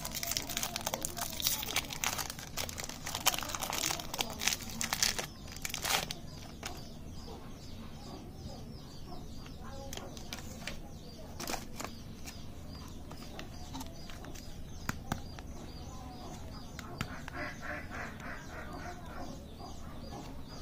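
Foil candy wrapper crinkling and crackling as it is peeled off a chocolate cone wafer, busy and loud for about the first six seconds. After that it goes quieter, with occasional wrapper rustles and clicks and faint bird-like calls in the background.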